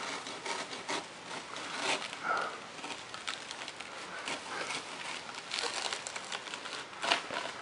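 Dry palm fronds crackling and rustling in irregular snaps as they are pulled and worked loose from the palm's trunk by hand.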